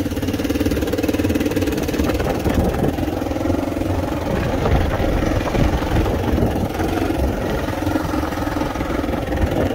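A small utility vehicle's engine running steadily as it drives slowly, keeping pace with a trotting dog.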